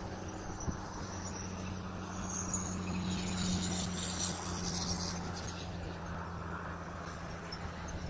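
A steady low drone that swells a little around the middle, under a high, faint chorus of night insects.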